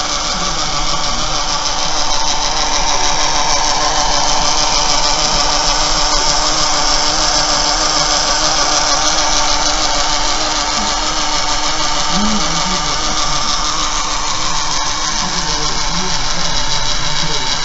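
Small electric motor and its drive mechanism running steadily, a loud, even whirring hiss with a faint hum underneath.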